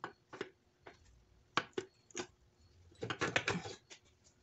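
Sharp knocks and metal clinks as a piston and connecting rod are worked out of a Honda D16Y7 engine block, with a short rattling clatter about three seconds in.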